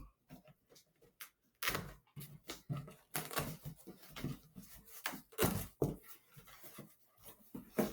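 A cardboard box being opened and handled: flaps, tape and contents rustling and scraping in irregular bursts.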